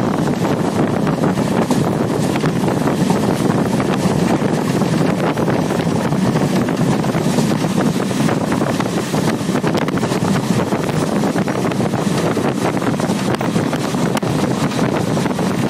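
Steady running noise of a moving express train, with wind on the microphone.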